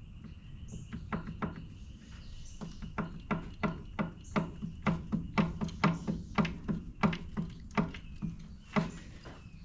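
Repeated sharp blows on metal engine parts, about three a second for several seconds, as the DeSoto Hemi engine's camshaft is struck to work it loose.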